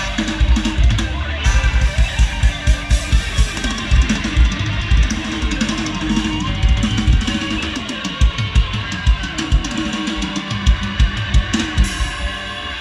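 Live Isan band music: a drum kit with a pounding kick drum keeps a steady fast beat under electric guitar, with no singing.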